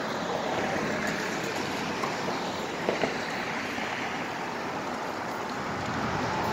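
Steady city street background noise, a hiss of traffic with no distinct passing vehicle, with one brief tap about three seconds in.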